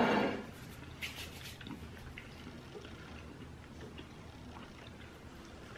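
A ceramic plate scraping as it is slid across a wooden table, a short grating sound that stops about half a second in. Then only faint small clicks.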